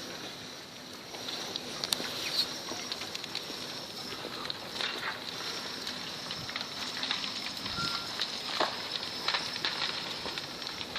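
Spoil-heap landslide moving: a steady hiss of sliding earth with irregular crackling and clattering of tumbling clods and stones.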